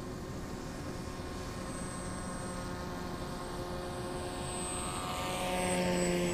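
Electric pusher propeller of a scratch-built R/C foam plane, driven by an E-max CF2822 brushless outrunner motor, buzzing steadily and growing louder as the plane flies in and passes close by near the end, its pitch dropping as it goes past.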